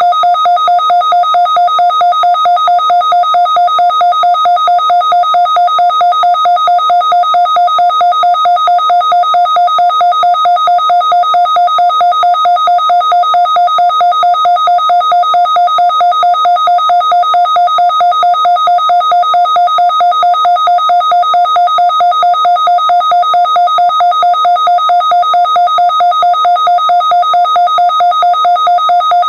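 Midland weather alert radio sounding its alert alarm: a loud electronic tone of two held pitches, pulsing rapidly and evenly, set off by the weekly test broadcast while its Advisory lights are lit.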